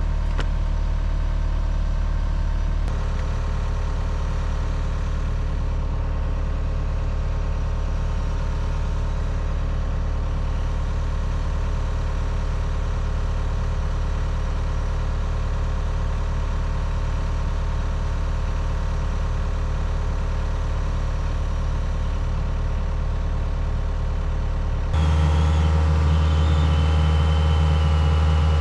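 Heavy equipment diesel engine idling steadily. It becomes suddenly louder about 25 seconds in.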